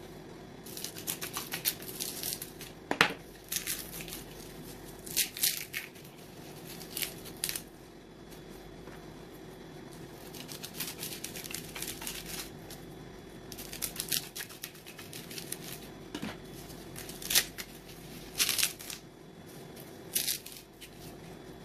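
Dry coconut husk being scraped and its fibres torn away, heard as irregular bursts of scratchy crackling. A couple of sharp knocks come through, the loudest about three seconds in.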